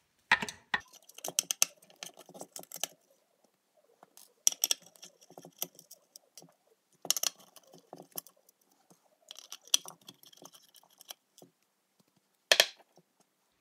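A nut driver unscrewing small nuts from a pedal's circuit-board mounting studs: several short bouts of metal clicking and scraping, with a single sharp clink near the end.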